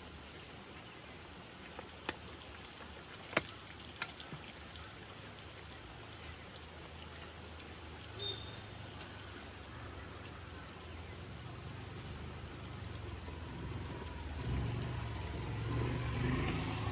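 A car engine running with a low rumble that grows louder over the last few seconds, over a steady background hiss, with a few sharp clicks a few seconds in.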